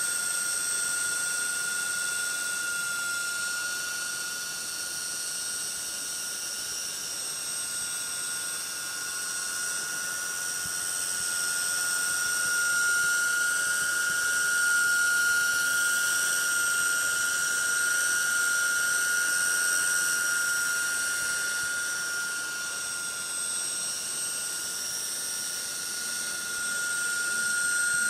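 RC coaxial helicopter hovering with its rotors at slow head speed: a steady high-pitched whine that swells and eases slightly as it moves about.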